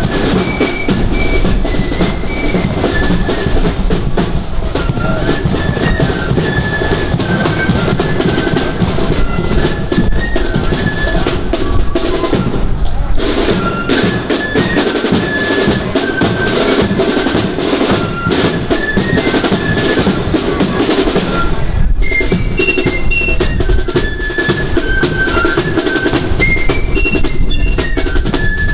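Marching flute band playing: a tune on flutes over snare drums and a bass drum, with a brief break in the playing about twelve seconds in.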